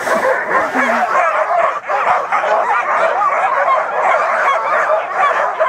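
Many harnessed sled dogs barking and yelping at once, a loud, dense chorus of overlapping short calls with no break. It is the racket of a sled-dog pack excited and eager to start running.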